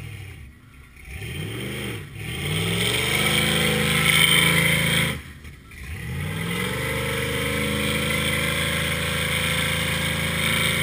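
Lifted Ford pickup's engine revving hard as its oversized Super Swamper mud tires spin through mud and sand. The throttle lifts briefly twice, near the start and about halfway, then holds high revs steadily to the end.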